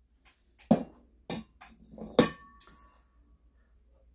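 Metal tools being handled and set down on a workbench: a series of short clinks and knocks, the loudest about two seconds in with a brief metallic ring.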